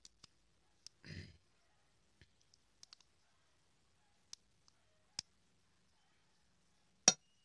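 Scattered small clicks and taps as a Casio AE-1000W's rubber strap and buckle are fastened around a wrist, with a soft rustle about a second in and a louder sharp click near the end.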